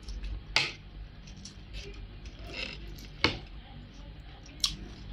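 Metal fork and spoon clinking and scraping against a plate of rice, with three sharp clinks: about half a second in, a little past three seconds, and near the end.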